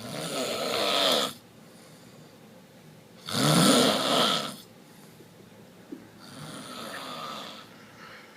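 A sleeping man snoring: three long rattling snores about three seconds apart, the last one quieter.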